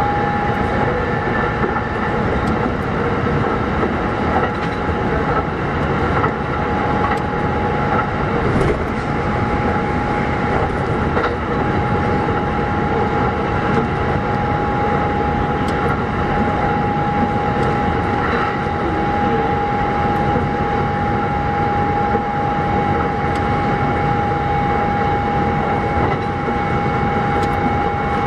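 Kintetsu 1201 series electric train running at a steady speed between stations: a steady whine over the rumble of wheels on track, with a few faint clicks.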